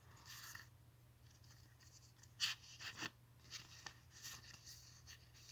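Tarot cards being handled: a few short, faint rustles and light taps of card stock against a low steady hum, the loudest about two and a half and three seconds in.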